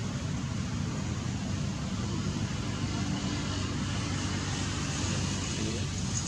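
An engine running steadily as a low hum, under an even hiss.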